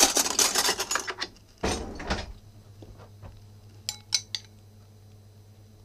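Kitchen handling noise and clatter, then a few sharp clinks of a metal spoon against a ceramic bowl about four seconds in. A steady low hum starts about two seconds in.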